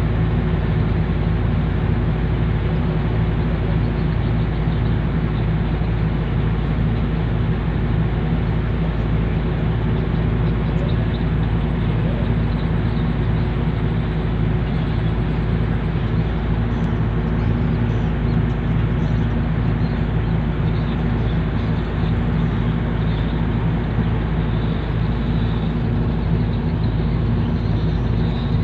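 Diesel engine of a landing craft tank (LCT) running steadily under way, an even low hum that holds constant in pitch and level.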